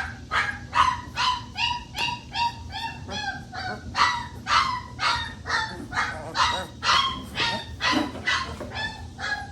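Three-week-old Boerboel puppy crying in a rapid, steady run of short high yelps, about two to three a second, protesting while being held and dewormed.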